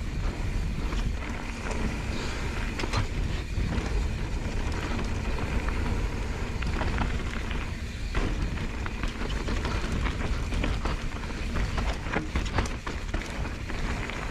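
Mountain bike riding fast down a loose slate-gravel trail: tyres crunching over stones and the bike rattling over bumps, with many short clicks and knocks over a steady low rumble of wind on the microphone.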